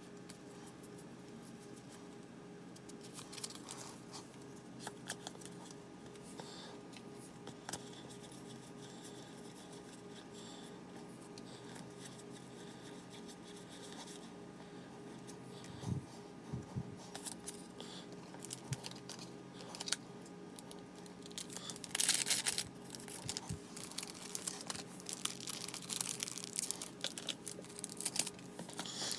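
Pokémon trading cards being handled: papery rustling, sliding and light taps as cards are fanned through in the hand and laid down on the mat, growing busier and louder in the second half. A steady low hum runs underneath.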